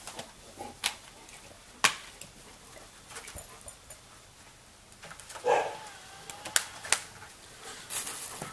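Several sharp plastic clicks and knocks, the loudest about two seconds in, as a video game case and console are handled. A dog gives a brief whine about five and a half seconds in.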